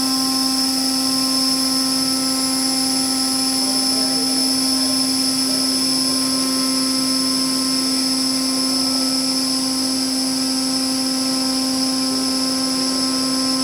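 Organic Rankine cycle turbine-generator module running at high speed under load, giving a steady machine whine of several held tones over a strong low hum.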